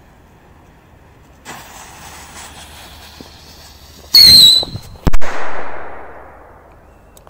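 Small whistling firework rockets firing: a hiss starts about a second and a half in, then a brief, loud, shrill whistle with a slightly falling pitch as a rocket goes up, followed about half a second later by a sharp bang that dies away in a long echo.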